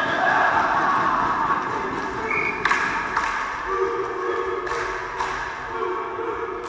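Volleyball players' shouts and cheers echoing in a sports hall as a team celebrates a point. These are followed by a volleyball bouncing on the hall floor four times, in two pairs a couple of seconds apart.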